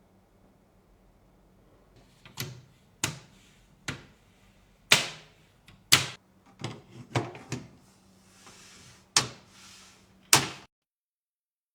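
A series of about ten sharp clicks and knocks of hard objects being handled, starting about two seconds in, with a soft rustle between some of them, then stopping abruptly near the end.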